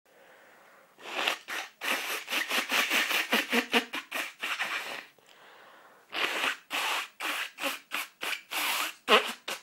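A person blowing their nose hard in a quick series of short, rough blows, pausing for about a second partway through before another run of blows; the sharpest, loudest blast comes near the end.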